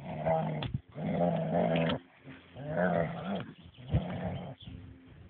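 A dog growling at another dog in four drawn-out, low growls with short breaks between them.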